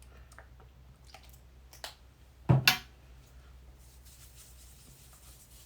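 Small clicks and taps of a toner bottle and scrubbing pad being handled, with two sharp clicks close together about halfway through.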